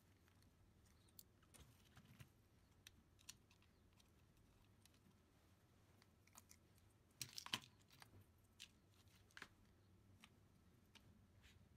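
Near silence with faint scattered clicks and rustles of hands handling wires and small plastic parts on an RC car chassis, with a brief louder cluster of clicks about seven seconds in.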